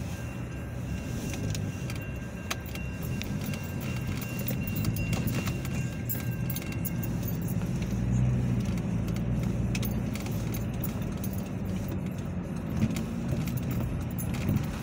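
Steady low hum of a car's engine and tyres, heard from inside the car as it drives over a railroad crossing, with irregular light jingling clicks throughout. A faint steady high tone fades out about seven seconds in.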